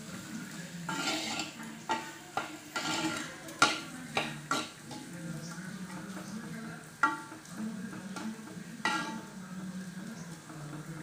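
A metal spoon stirring chopped onions and raw rice frying in oil in an unglazed clay pot, with a light sizzle. The spoon scrapes and knocks against the clay about once a second, the loudest knock about three and a half seconds in.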